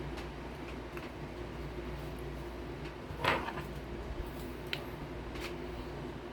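Small handling noises while eating: one short crunch or rustle about three seconds in and a few faint clicks, over a steady low hum.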